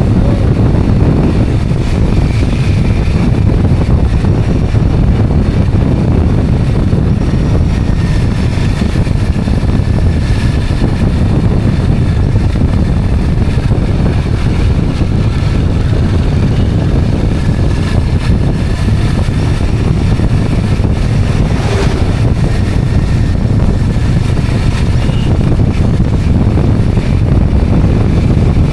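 Steady rush of wind on the microphone and low rumble from a two-wheeler in motion.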